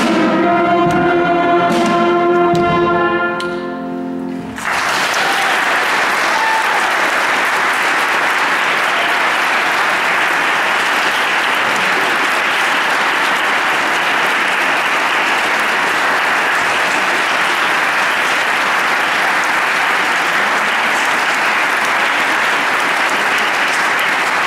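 A children's school brass band plays the last few short chords of a piece, with drum hits, and the final chord fades out about four seconds in. Then an audience applauds steadily.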